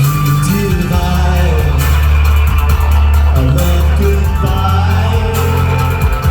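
Live band playing a loud song with heavy bass and drums, a voice singing over it.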